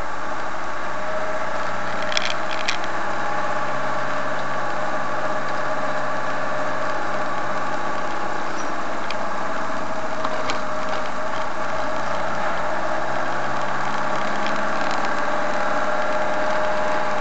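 Motorhome engine running steadily on the move, heard from inside the cab, with a few short rattles: two about two seconds in and one near the middle.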